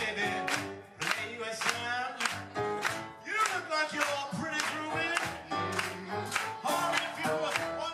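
Live rock band performance: a male lead vocalist sings into a handheld microphone over a band whose drums keep a steady beat, with a female backing singer.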